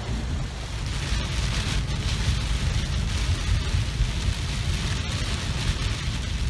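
Heavy rain pelting the windshield of a moving Class C RV, over the steady low rumble of its engine and tyres on the wet road.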